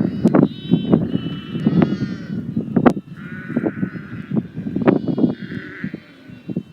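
Repeated short animal calls, each about half a second, over a loud low rumble with knocks.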